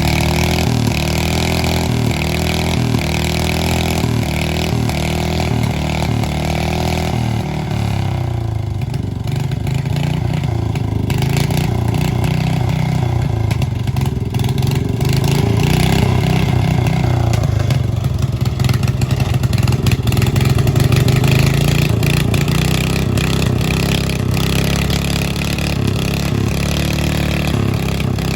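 Lawn mower engine driven hard through mud, its pitch rising and falling over and over in the first few seconds, dropping lower for a while, then climbing to its loudest about halfway through.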